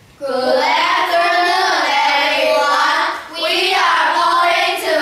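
A group of children singing together in unison, two sung phrases with a short break about three seconds in.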